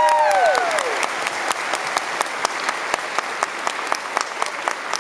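Audience applauding steadily, with a couple of long whoops that rise, hold and fall in pitch during the first second.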